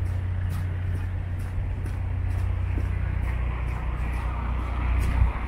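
Street traffic: a steady low engine rumble, with car tyres hissing on the wet road and growing louder in the second half. Faint footsteps tick about twice a second.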